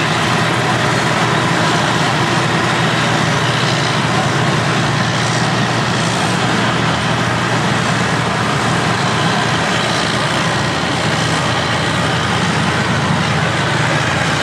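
Diesel engine of a Caterpillar crawler bulldozer running steadily as it drives past close by, with other heavy earthmoving machines running behind it.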